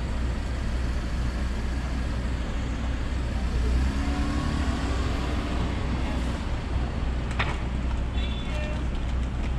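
Minivan engine idling, a steady low rumble, with a short sharp clatter about seven seconds in.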